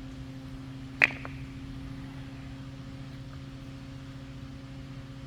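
A steady low hum, with one sharp click about a second in.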